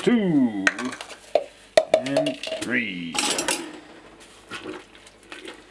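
A metal spoon clinking and scraping against a stainless steel brew kettle as hops are stirred into hot wort. There are several sharp clinks in the first two seconds, a short scrape a little after three seconds, and fainter taps near the end.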